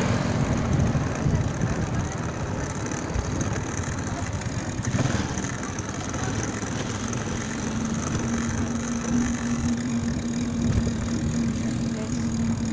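Street traffic and low wind rumble on the microphone while riding a bicycle along a city street. A motor vehicle's engine is heard running, with a steady hum coming in about seven seconds in.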